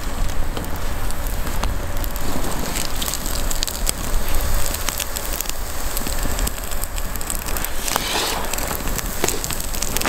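Small campfire of wet twigs and birch bark burning, a steady crackle with many scattered small pops. The wood is still wet and the fire is smoking heavily as it catches.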